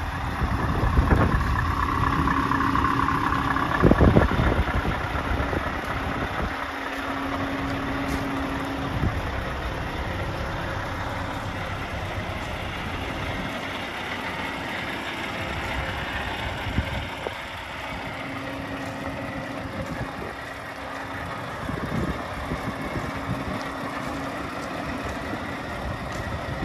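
Scania R580 truck tractor's V8 diesel engine running at low revs as the truck moves slowly, with a single sharp thump about four seconds in.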